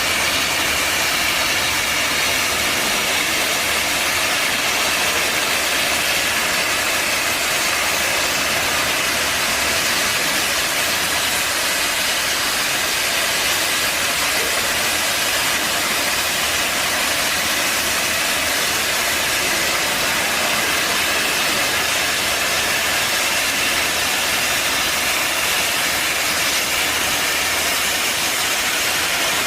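Portable CNC plasma cutting machine's torch cutting metal: a steady, loud hiss with a faint high whine in it.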